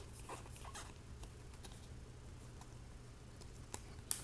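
Faint clicks and slides of a stack of trading cards being handled and flicked through by hand, with a couple of sharper clicks near the end.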